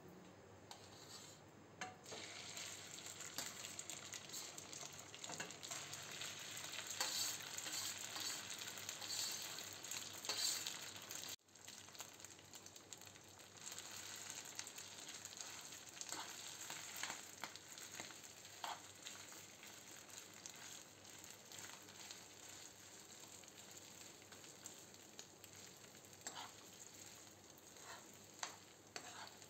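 Mashed boiled potato sizzling as it fries in hot ghee in a nonstick pan, stirred and scraped with a steel spoon. The sizzle starts about two seconds in and is loudest for the first ten seconds or so, then drops suddenly and goes on as a softer frying hiss with a few clicks of the spoon.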